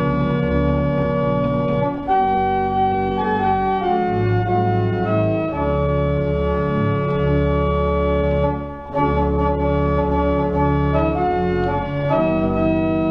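Pipe organ playing slow, sustained chords, with deep pedal notes held beneath the manual chords. The chords change every second or two, and there is one brief break about two-thirds of the way through.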